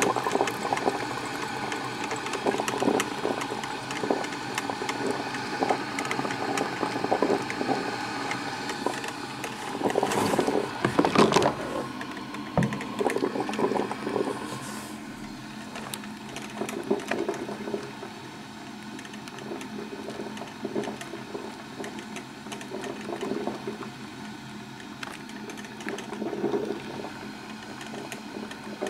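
Black & Decker drip coffee maker brewing: water gurgling and sputtering through the machine as a steady run of small pops and hiss, loudest about ten to twelve seconds in and quieter after that.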